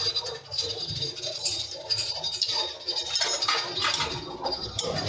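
Metal lathe turning a large metal disc, the cutting tool scraping across its face in an irregular series of scratchy strokes over a steady high whine, busier in the second half.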